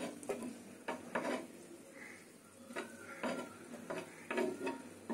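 A steel spoon scraping and clinking against a flat frying pan as shallow-fried tilapia fish fingers are lifted off it and set down on a stainless-steel plate, in irregular short scrapes and taps.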